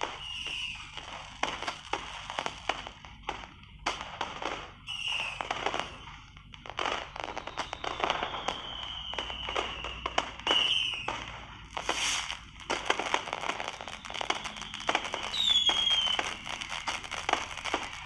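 Fireworks going off: a dense run of sharp cracks and pops, with several short whistles that fall in pitch and one longer falling whistle about eight seconds in.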